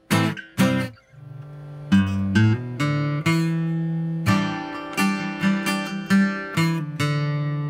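Orangewood Mason Live acoustic-electric guitar being played: two quick strummed chords, a brief pause, then a run of strummed chords that ring on between strikes.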